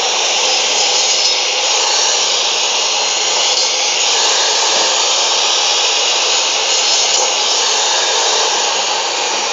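A 2000-watt Maktec cut-off saw motor running steadily at full speed while its toothed blade is pulled down through beef bone and meat. The sound eases slightly near the end as the blade is lifted.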